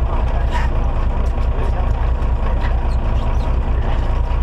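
Fishing boat's engine running steadily, a loud low drone, with a few light clicks on top.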